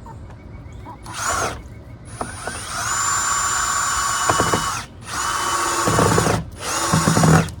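Power drill driving screws: a short burst, then three longer runs of steady motor whine, each stopping sharply.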